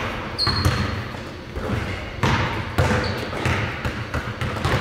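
Basketballs bouncing repeatedly on a hardwood gym floor as players dribble, with a couple of short high squeaks among the bounces.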